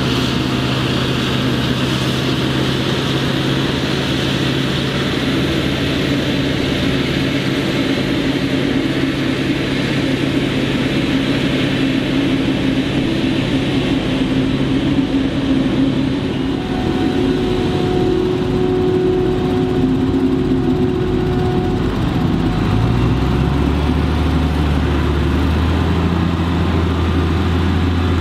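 Claas Jaguar 960 forage harvester and a Fendt Favorit 818 tractor with a silage trailer, their diesel engines running steadily under load while chopping maize. About 23 seconds in, a deeper engine note rises and grows stronger as the tractor pulls the trailer close by.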